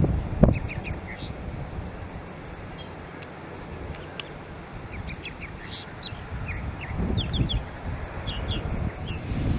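Small birds chirping: short high chirps in quick clusters of two or three, repeating on and off. Underneath is a low background rumble that swells briefly about half a second in and again around seven seconds in.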